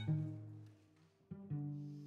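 Trio of violin, cello and piano playing low sustained notes: a low note fades away, the music almost stops just after a second in, then two new low notes come in a moment apart.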